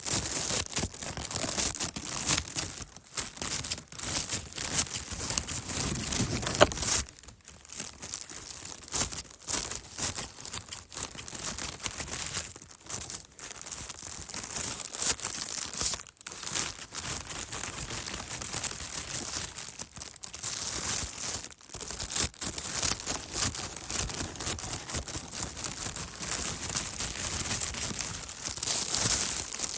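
Nylon plastic bag being cut, a continuous crinkling and tearing of thin plastic, full of small crackles, with a few brief pauses.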